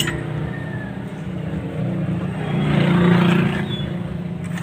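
A motor vehicle's engine running, growing louder about three seconds in and then easing off.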